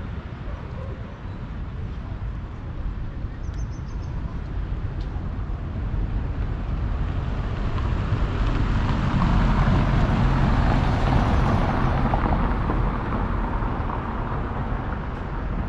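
Street traffic with a motor vehicle passing close by: its engine and tyre noise grows over several seconds, peaks about ten seconds in, then fades.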